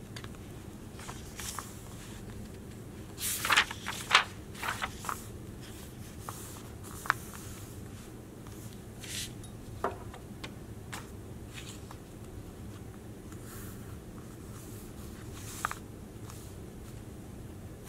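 Paper handling: rustles and scrapes as a notebook is opened and its pages smoothed flat by hand. The loudest part is a quick cluster of crinkles and swishes about three to five seconds in, followed by a few short taps and rustles spread out over a steady low background noise.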